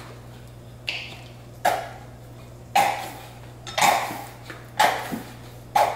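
Plastic ketchup squeeze bottle being squeezed over and over, about once a second, six short sputtering bursts as the last of the ketchup is forced out.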